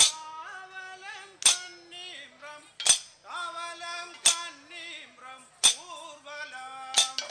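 Men singing a slow Kanniyarkali song, its melody gliding and held on long notes. A sharp metallic percussion stroke marks the beat about every second and a half.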